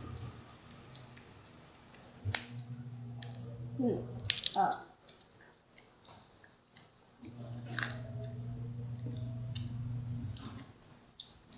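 Peanut shells being cracked and peeled by a child's fingers, with scattered sharp clicks as peanuts and shells knock against a stainless-steel bowl.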